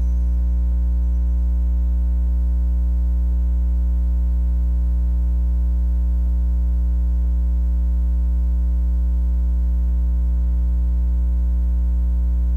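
Steady electrical mains hum with a ladder of overtones, unchanging throughout.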